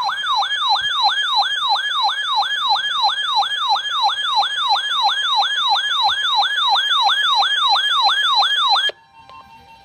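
A weather alert radio's electronic siren sounding for a severe thunderstorm warning: a rapid falling whoop repeated about three times a second, loud and steady, that cuts off suddenly near the end.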